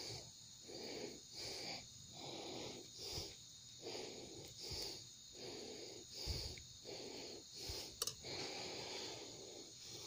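A person's breath in quick, even puffs, about one every three-quarters of a second, with one sharp crack about eight seconds in.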